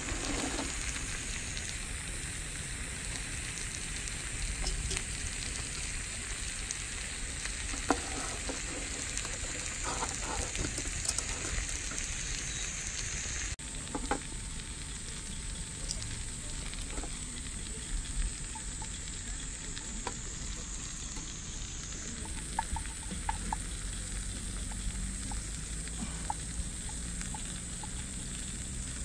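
Food sizzling as it fries over a mini tabletop fire stove: a steady high hiss with scattered light clicks.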